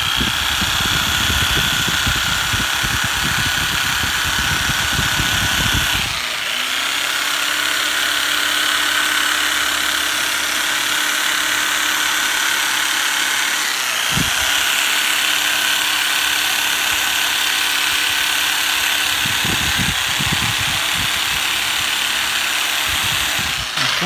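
Makita-bodied percussive massager (a modified power tool) running steadily while pressed against a person's upper back and shoulder. Its sound changes about six seconds in, a brief knock comes about fourteen seconds in, and it switches off just before the end.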